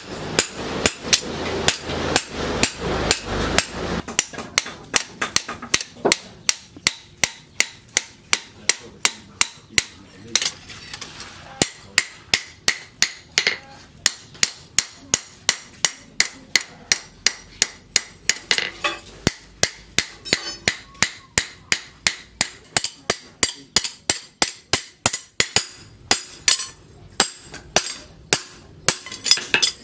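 Hand hammer forging a hot leaf-spring steel cleaver blade on a round steel post anvil: a steady run of ringing metal-on-metal blows, about two to three a second.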